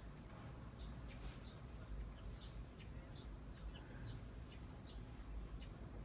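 Faint small birds chirping, many short high chirps at irregular intervals, over a low steady room hum.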